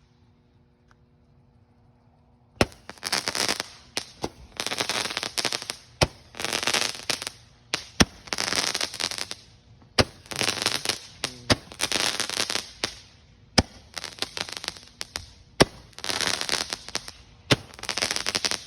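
Firecrackers going off: a run of crackling bursts, each about a second long, with sharp pops between them, starting a few seconds in.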